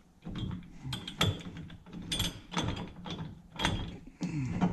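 Irregular metal clicks and clinks, several separate strikes, some with a short ring, as a steering wheel and puller are worked free of the steering column shaft.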